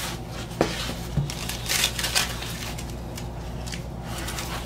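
Cardboard shipping box being pulled open by hand: the cardboard and paper packing rustle, crinkle and tear in irregular bursts, with a light knock about half a second in.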